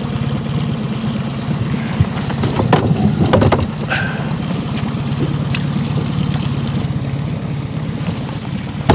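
Boat motor running steadily at trolling speed, with a few clicks and knocks about three seconds in.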